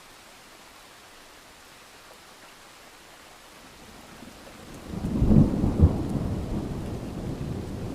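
Steady rain hiss, then about five seconds in a thunderclap breaks in suddenly with sharp cracks and a deep rumble that rolls on to the end.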